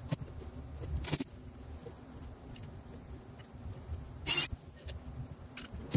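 Handling noise from fastening plastic cable clamps over wiring conduit on a fiberglass boat deck: a few sharp clicks, and one louder short rasping burst about four seconds in.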